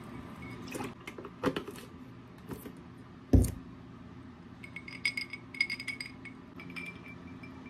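A few knocks and a single heavy thump on the counter, then ice cubes clinking against the inside of a drinking glass as it is swirled, in quick ringing runs over the last three seconds.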